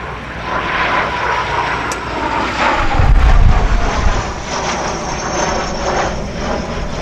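English Electric Canberra's twin Rolls-Royce Avon turbojets on a flypast: a steady rushing jet noise with a faint whine, swelling to a deep rumble about three to four seconds in as the aircraft passes overhead.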